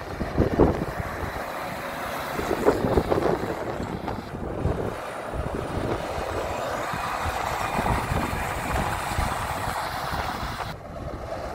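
Heavy trucks' diesel engines driving past at low speed, one after another, with wind rumbling on the microphone.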